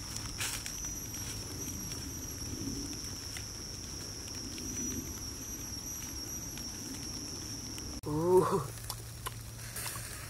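A steady high-pitched insect drone, with faint rustling of bare feet walking on dry leaves. About eight seconds in, the drone cuts off and a voice calls out a drawn-out 'wooo' that rises and falls; this is the loudest sound.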